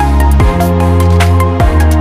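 Loud electronic background music with a heavy bass and a kick drum beating about twice a second.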